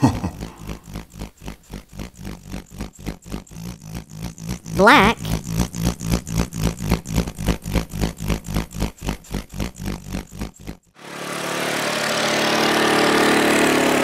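Diesel road grader engine chugging in an even rhythm of about four or five beats a second. Almost three seconds before the end it cuts off, and a smoother, steadier engine hum starts up.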